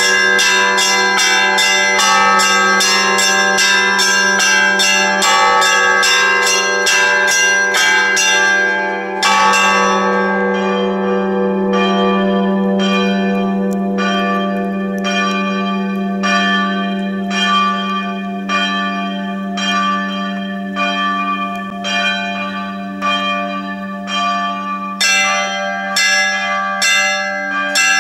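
Church bells ringing in a peal: several bells struck in quick succession, about three or four strokes a second, over a deep bell humming steadily underneath. About a third of the way in, a loud stroke ends the quick ringing and slower single strokes follow, roughly one a second. Quick ringing starts again near the end.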